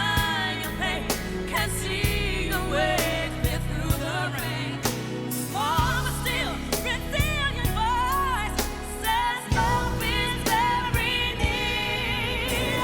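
Pop ballad music: a singer's wordless, wavering vocal runs over band accompaniment with a steady beat.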